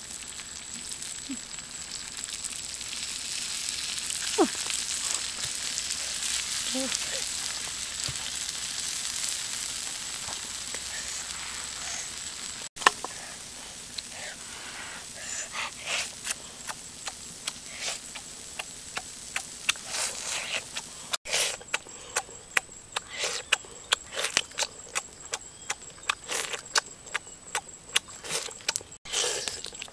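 Pork ribs sizzling on a hot rock as a steady hiss. After about 13 s the hiss gives way to a run of sharp clicks and smacks: the cooked ribs being handled and torn, then noisy chewing and lip-smacking.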